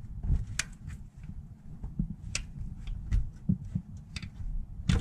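Scattered sharp metallic clicks and light handling of a tool at a hydraulic timing-belt tensioner as its set pin is pulled out, releasing the tensioner to push its pulley against the belt.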